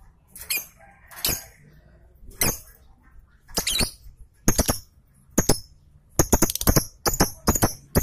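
Caged lovebird giving a series of short, harsh, shrill chirps, about one a second at first and coming faster near the end.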